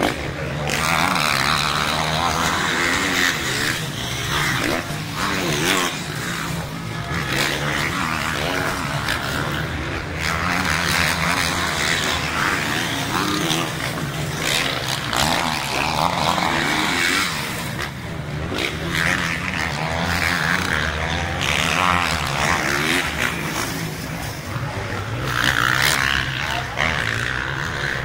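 Motocross bike engines revving hard, their pitch rising and falling as riders accelerate, shift and jump past on the circuit.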